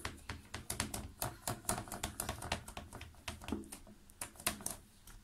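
A plastic hair comb clicking and tapping against a plastic tray, with many short irregular clicks, several a second, as a ball of soft dough is pressed flat across its teeth.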